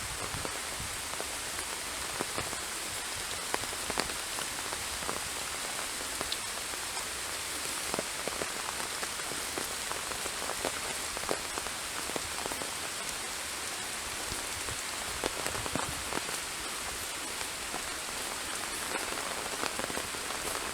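Steady rain pattering, with many small drop taps standing out from the hiss.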